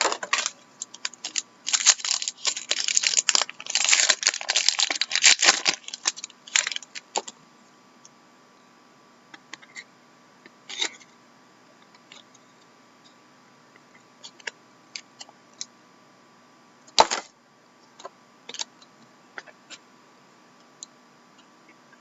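Trading cards and their pack wrapper being handled: dense crackling and clicking for the first six or seven seconds, then scattered light clicks, with one sharper click about seventeen seconds in.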